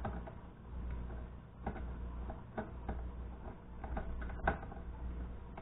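Scattered light clicks and taps as a computer monitor's internal parts are handled and fitted back together, over a low steady hum.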